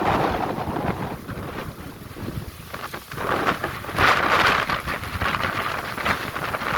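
Strong wind buffeting the microphone in gusts, swelling and dropping, loudest about four seconds in.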